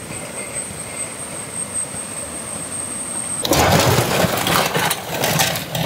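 Steady rush of running river water with a thin high whine. About three and a half seconds in, a loud clattering rush starts as raw crabs, shrimp and squid are tipped out of a metal basin onto a heap.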